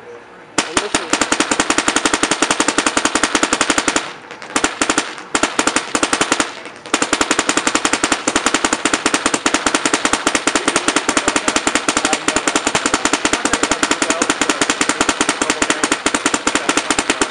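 Dye NT paintball marker firing fast, even strings of sharp pops. There is a brief break about four seconds in and a longer one around six seconds.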